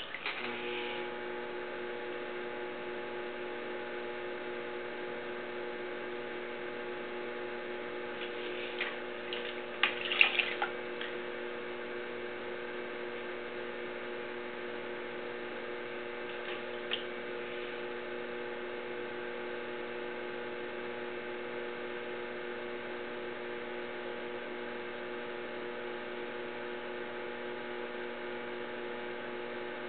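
Electric potter's wheel motor humming steadily as the wheel head spins. Wet hands work a small lump of porcelain clay on it, with a few short wet squelches about eight to eleven seconds in, loudest near ten seconds, and a single click a few seconds later.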